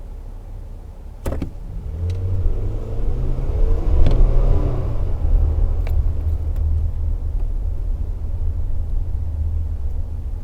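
Toyota Tacoma pickup's engine accelerating under heavy throttle, heard from inside the cab over a steady low road rumble. The engine note swells about a second in, is loudest around four seconds in, then holds steady; a few sharp clicks are heard along the way.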